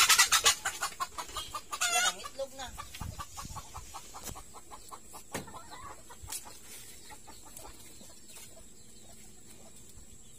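Poultry clucking: a quick run of clucks, loudest at the start and again about two seconds in, dying away after about four seconds.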